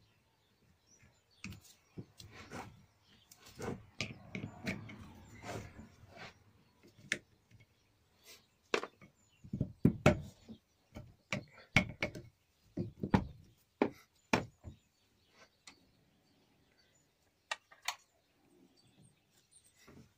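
Metal mini-lathe parts and hand tools such as pliers being handled on a workbench during dismantling: an irregular series of knocks and clinks, the loudest about ten to fifteen seconds in, with a few seconds of rougher, continuous scraping noise about four seconds in.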